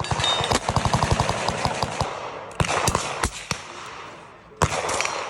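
Gunfire on a range: a rapid burst of automatic fire, about ten shots a second, for roughly two seconds, then several separate single shots.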